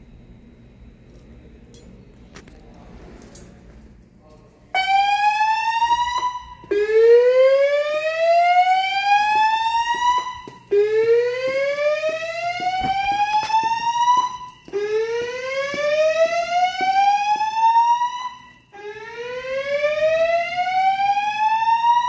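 Fire alarm speaker-strobes on a Notifier NFS2-3030 voice evacuation system sounding the slow whoop evacuation tone. A loud tone rises steadily in pitch over about four seconds and repeats with short breaks, starting about five seconds in.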